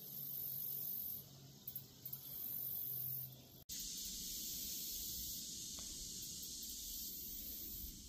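Faint outdoor background hiss, high-pitched, swelling twice for about a second each, then cutting out briefly about halfway and holding steady after.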